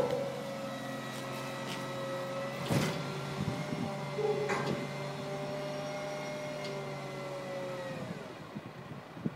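MAN truck's hook-lift hydraulics and engine whining steadily under load as the hook arm pulls a steel roll-off container up onto the chassis, with a couple of metal clunks from the container. About eight seconds in, the whine drops in pitch and dies away as the lift finishes.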